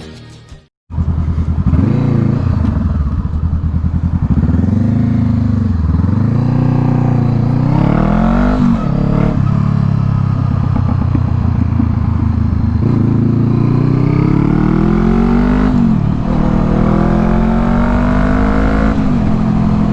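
Honda motorcycle engine pulling through the gears while riding: its pitch climbs with each gear and drops sharply at each upshift, about four shifts in all. A music track cuts off just under a second in, just before the engine is heard.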